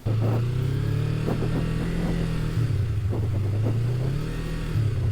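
Motorcycle engine running under way, its pitch climbing, dropping about two and a half seconds in, then climbing again.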